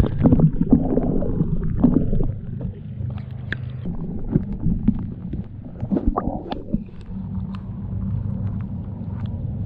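Lake water gurgling and sloshing around a camera held underwater and then at the waterline, heard as a muffled low rumble with many small irregular clicks and splashes.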